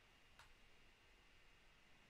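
Near silence: faint steady room hiss, with one faint short click about half a second in.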